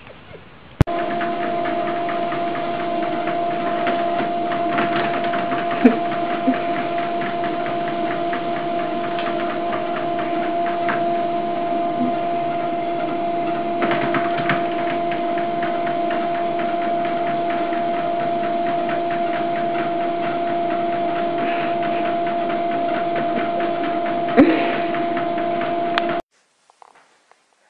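Motorised home treadmill running at a steady speed: a constant motor hum over the rumble of the moving belt, with a cat on it. A couple of sharp knocks sound within it, and it cuts off suddenly near the end.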